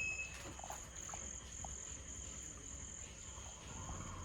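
Insects chirping steadily in a high, pulsing chorus, with a few faint clicks.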